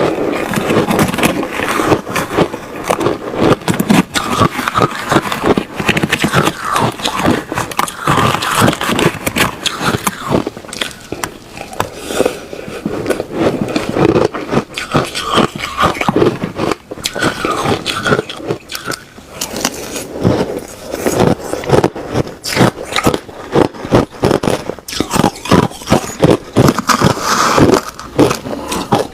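Ice being bitten and chewed in the mouth: continuous crackly crunching with many fast, uneven strokes.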